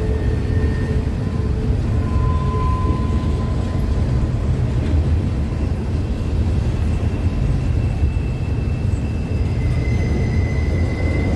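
A train going by: a steady heavy rumble, with a few faint thin high squeals now and then.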